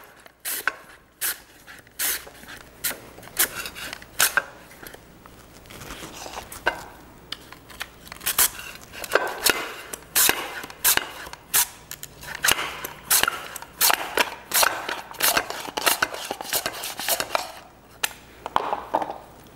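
Sweet potato being cut on a handheld mandoline slicer: repeated crisp cutting strokes, about one or two a second, as the thin slices drop into a glass baking dish.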